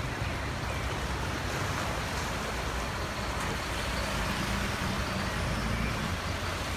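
A truck engine running as the truck drives through floodwater, with the steady rush and slosh of water around it.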